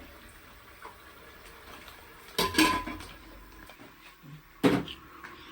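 Kitchen utensils and dishes clattering: a clatter with a brief metallic ring about two and a half seconds in, and a single sharp knock near the end.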